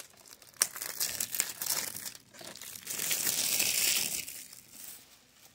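Plastic shrink-wrap being torn and peeled off a DVD case, crinkling, with a sharp snap about half a second in and the loudest crinkling about three to four seconds in.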